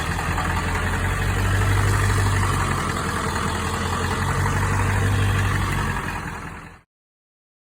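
A high-mileage 7.3L Powerstroke V8 turbo-diesel in a 2000 Ford F250 running steadily at idle, then fading out about six and a half seconds in.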